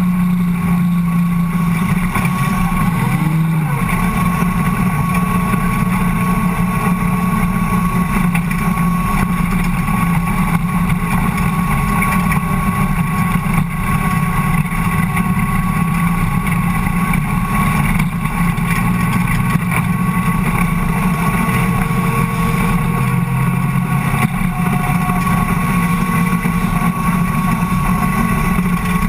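Ford Cortina dirt-track race car's engine running hard at high revs, heard from inside the cabin. Its note holds mostly steady, dipping and rising again briefly a few seconds in and once more late on.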